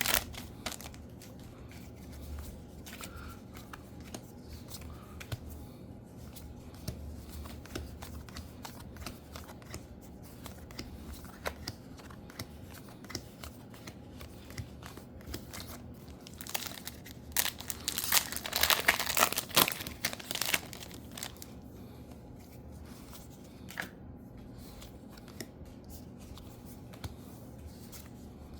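Trading card booster pack wrappers crinkling and tearing open, loudest in a stretch about 17 to 20 seconds in, amid quieter rustles and small clicks of handling.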